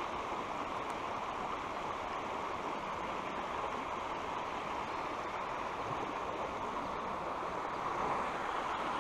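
A small river's water running steadily, an even rush of flowing current.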